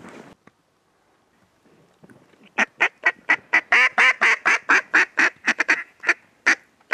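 A fast run of loud mallard quacks, about four or five a second, starting about two and a half seconds in and thinning to a few spaced quacks near the end.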